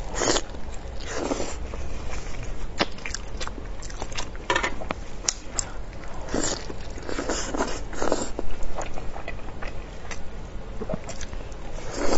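Biting, gnawing and chewing on a hand-held piece of spicy braised pork elbow, an irregular run of short bites and mouth sounds picked up close by a clip-on microphone.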